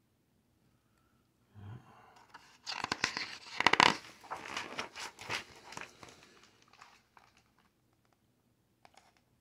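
A large picture-book page being turned by hand: paper rustling and crinkling for about five seconds, loudest in the middle, then a couple of faint clicks near the end.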